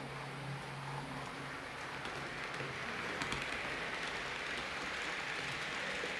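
Hornby Class 390 Pendolino model train running along the track: a steady whirring rumble of its motor and wheels on the rails, growing louder as it comes closer, with a few clicks about three seconds in.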